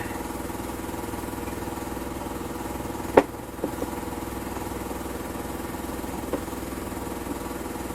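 Small engine running steadily at idle, with one sharp knock about three seconds in and a couple of fainter taps later.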